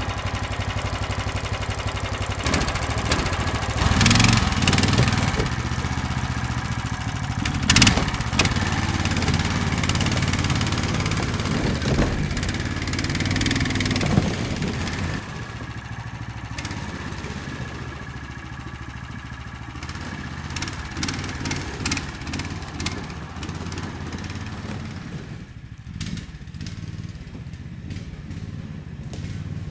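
Small engine of a Snowdog tracked motorized sled running after being started. It is louder for the first half, then quieter from about halfway through, with a sharp knock about eight seconds in.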